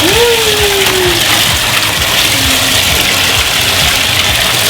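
Bathtub tap running, water gushing steadily into the tub.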